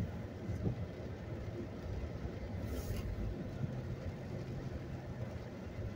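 Low, steady rumble of a pickup truck heard from inside the cab while it creeps along in slow traffic. A brief hiss comes about three seconds in.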